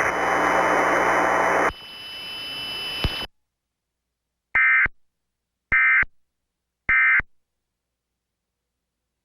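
Radio static hiss that drops in level partway and cuts off. After about a second of silence come three short identical bursts of EAS SAME digital data tones, about a second apart, from a Trilithic EASyPLUS encoder. They are the end-of-message bursts that close the alert test.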